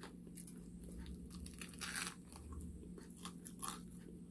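Crunching and chewing of crispy Popeyes fried chicken: a scatter of short crackly crunches, the densest about two seconds in.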